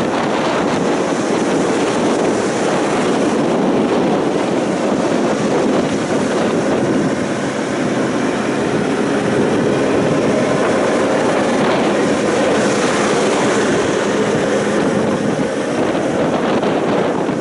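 Bobcat T770 skid steer's diesel engine running steadily, with mechanical clatter.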